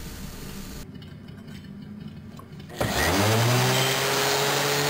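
A random orbital finishing sander starts up a little under three seconds in, its hum rising quickly and settling into a steady run. Before that, faint rubbing of a polishing cloth on a rusty chrome pipe.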